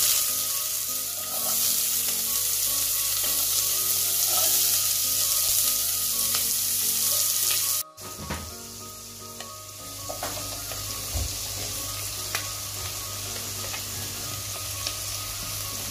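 Chopped onions sizzling loudly as they hit hot oil with mustard seeds in a non-stick pot. After a cut about eight seconds in, the frying goes on more quietly, with a few light knocks.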